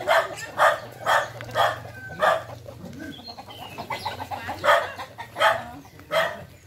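Short, sharp calls from a village animal, a chicken or a dog, repeated about five times in the first two and a half seconds and three more times later on.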